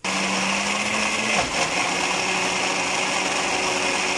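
Electric blender-grinder running at full speed, grinding soaked urad dal with a little water into a thick paste. The motor starts suddenly and runs steadily, its hum dipping slightly in pitch about a second and a half in.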